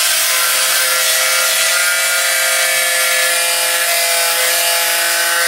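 Angle grinder running steadily under load, its disc grinding the steel of a wood chipper's cutter disc: a loud, even grinding hiss over a steady whine.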